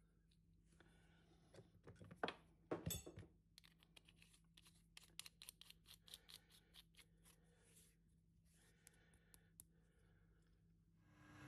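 Faint clicks and light metal knocks as a steel ball and a threaded metal retaining cap are fitted by hand onto a ball burnishing tool, the loudest knocks about two to three seconds in, followed by a run of quick small ticks.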